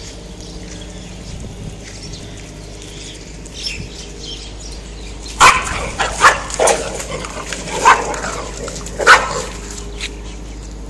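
Street dogs in a fight, barking: about halfway through, a run of about five loud, sharp barks over some four seconds.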